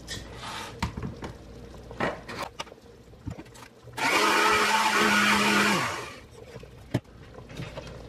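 Countertop blender running in one short burst of about two seconds, partly puréeing hot potato soup, then fading as it is switched off. A few knocks and clicks from the jar being set on the base come before it, and a sharp knock comes after.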